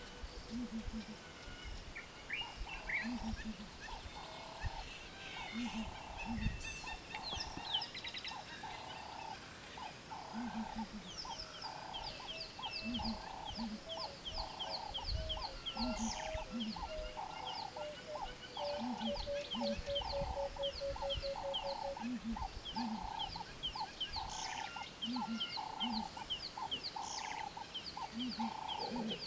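Bush ambience of several wild animals calling over and over at once. A mid-pitched call repeats about once a second, low double notes come every few seconds, and from partway in quick high chirps come several times a second.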